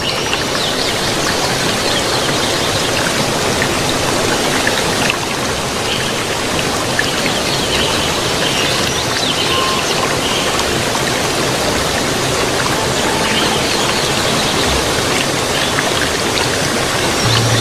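Steady, even rushing noise like falling water, with faint scattered ticks above it.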